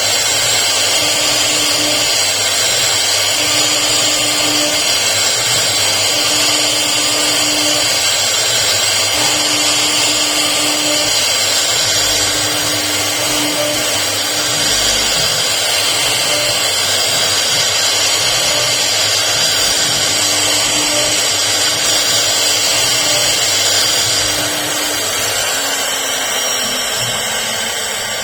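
CNC router spindle running at high speed while cutting wood: a steady high-pitched whine over a rushing noise, easing off in the last few seconds.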